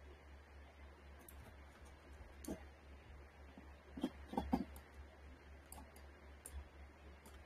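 Faint steady low hum, with a soft tap about two and a half seconds in and three quick taps close together about four seconds in.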